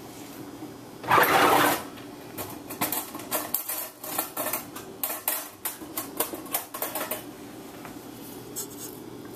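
Electric stand mixer running with its flat beater in a stainless steel bowl, shredding cooked chicken: a steady motor hum with a loud burst of noise about a second in. For several seconds after that comes a fast run of metallic clacks and rattles, then the hum alone near the end.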